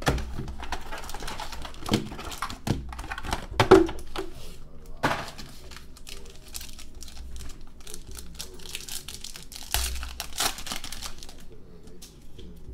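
Foil trading-card pack wrappers crinkling and tearing as 2015 Panini Crown Royale football packs are opened, with a few knocks of the cardboard box and packs against the table, then cards sliding through the hands.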